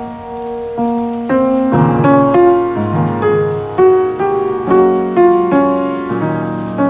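Background piano music: a gentle melody with chords, notes struck about twice a second.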